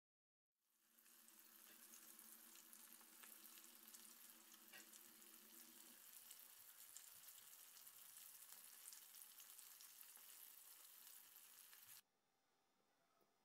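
Faint, steady sizzling and crackling of oil as whole pomfret fish shallow-fries in a pan. It fades in about half a second in and cuts off suddenly about twelve seconds in.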